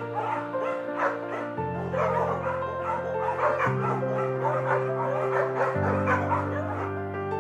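A dog making rapid, repeated short high calls, several a second. Behind it plays background music whose sustained low chords change every couple of seconds.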